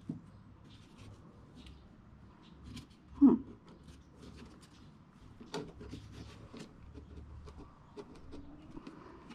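Small clicks and knocks of an old gas can's push-and-turn spout being worked loose by hand. A single short, loud sound falling in pitch comes about three seconds in.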